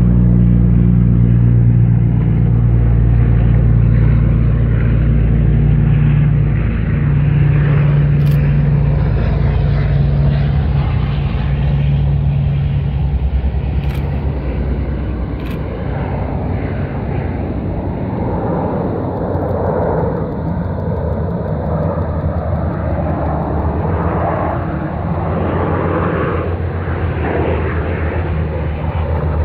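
Propeller engines of a Canadair amphibious water bomber flying low over the water: a steady low drone that turns into a rougher, wavering engine noise in the second half as the aircraft passes. Three brief sharp clicks fall in the middle.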